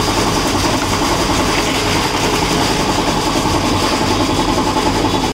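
A roasted-peanut red-skin peeling machine running steadily, its friction rollers rubbing the red skins off the peanuts being fed through it.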